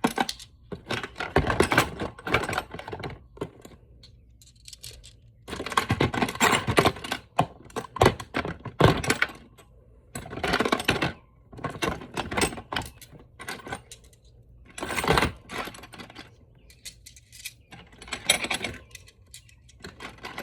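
Metal sockets clinking and rattling against each other as they are handled and sorted, in repeated bursts of clicks and clatter with short pauses between.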